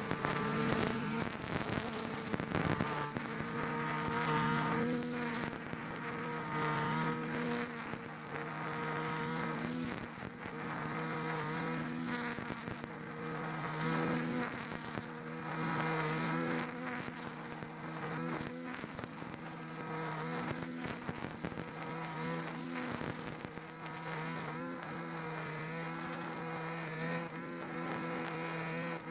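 Backpack brush cutter's small petrol engine buzzing at high revs while its 2.2 mm nylon line cuts grass. The engine note dips and rises every few seconds as the line bites into the grass and clears.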